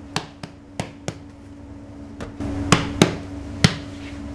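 A series of sharp knocks, about seven in all, the loudest three coming close together near the end, over a steady low hum that grows louder about halfway through.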